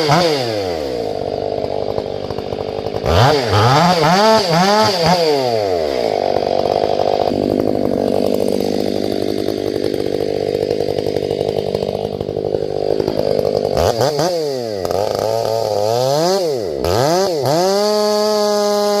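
Two-stroke chainsaw revved up and down several times, then held at a lower, steady pitch for about eight seconds as it cuts through wood, before revving up and down again and holding high near the end.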